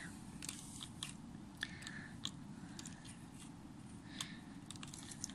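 Faint, scattered clicks and light taps of hands handling a plastic toy drone-motorbike, over a low background hiss.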